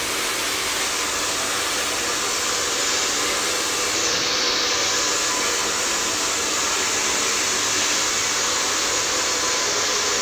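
Hair dryer running steadily, a continuous blowing rush with a faint motor hum.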